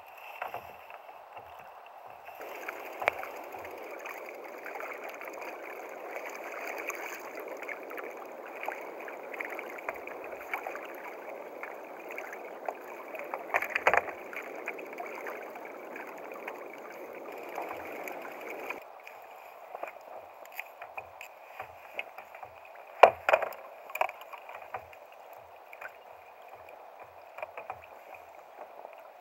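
Sea water lapping and sloshing against a kayak hull as a steady wash, which grows louder a couple of seconds in and drops back about two-thirds through. Scattered knocks and clicks run over it, with one sharp knock about three-quarters of the way through.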